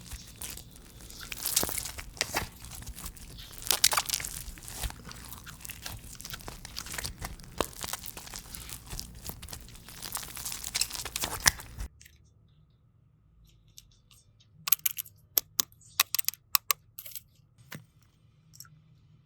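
Crunchy slime being squeezed and pulled by hand, a dense run of crackling, tearing and crunching. It stops abruptly about twelve seconds in, followed by a few scattered sharp clicks and pops.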